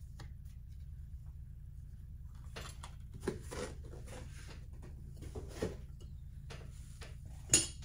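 Light knocks and clicks of a creamer and sugar set and its box being handled, about half a dozen scattered through, the sharpest near the end, over a low steady hum.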